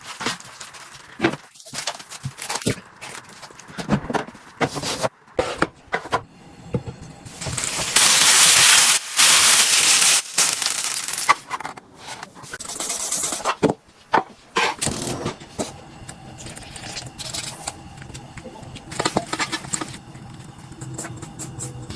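Fried chicken being handled in the kitchen: scattered clicks, scrapes and crackles. A loud hiss comes in about eight seconds in and lasts about two and a half seconds, with shorter hisses later.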